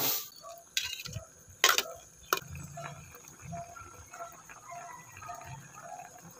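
A pot of fish broth simmering on the boil, with soft, irregular bubbling pops and plops. A couple of sharp clicks come before the bubbling sets in.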